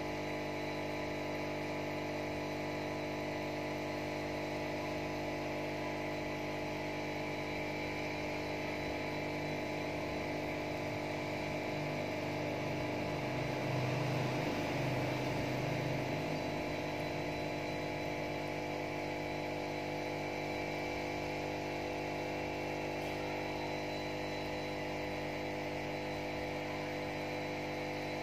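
Steady mechanical hum made of several unchanging tones. A lower part of the hum swells louder for a few seconds around the middle, then settles back.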